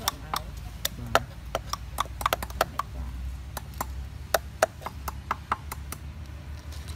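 Cleaver chopping small fish on a round wooden chopping block, cutting off their heads: irregular sharp knocks of the blade on the wood, several a second, some in quick runs.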